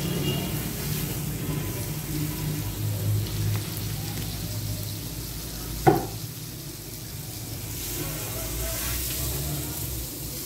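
Butter sizzling as it melts on a hot non-stick griddle pan over a gas flame, pushed around with a metal fork. A single sharp knock about six seconds in.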